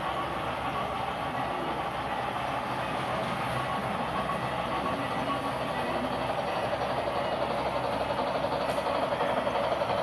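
Model train running on layout track: a steady rolling rumble of the locomotive and freight cars' wheels on the rails, growing a little louder toward the end.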